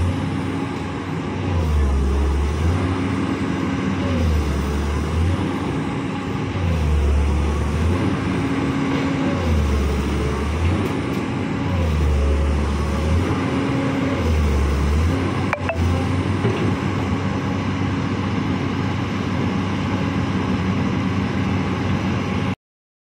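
Komatsu PC200-8 excavator's six-cylinder turbo-diesel engine running while the arm and bucket are worked. Its note steps down and back up about every two seconds as the hydraulics take load, then holds steadier after a single sharp knock about fifteen seconds in. The sound cuts off near the end.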